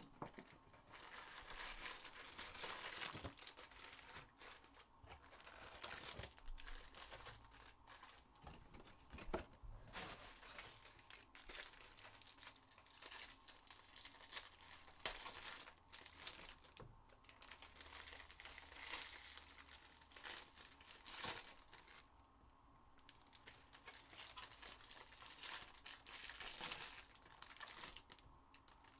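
Packaging of sealed baseball-card packs being torn open and crinkled by hand: irregular rustling and crackling with a few sharper rips.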